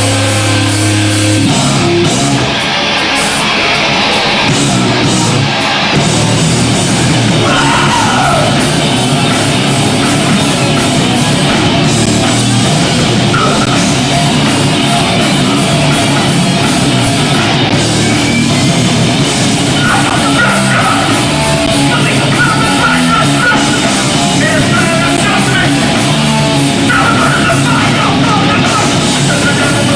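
Hardcore punk band playing live and loud: distorted electric guitars, bass and drums, with shouted vocals. A held, ringing chord opens, and about a second and a half in the full band crashes in at full tempo.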